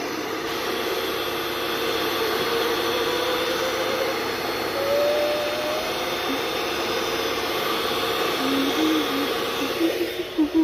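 Electric mixer running steadily as it whisks egg whites toward soft peaks for a meringue, cutting off about ten seconds in.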